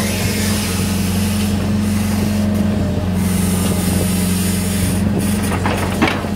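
Hitachi 60-class hydraulic excavator's diesel engine running steadily while the machine works, with a deep even hum. A few short sharp clacks come about six seconds in.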